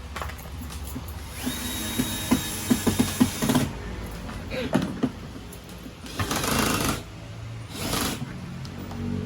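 A small electric motor running in short bursts, a whine with clicking, starting and stopping several times.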